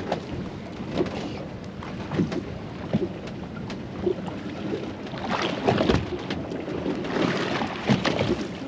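On-deck sounds of a small fishing boat drifting at sea: wind on the microphone and water against the hull, with scattered knocks and clatter and louder rushes of noise about five and seven seconds in.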